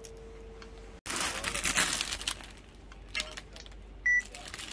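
Clothes in clear plastic packaging rustling and crinkling as they are handled and laid on a pile. A single short electronic beep sounds near the end.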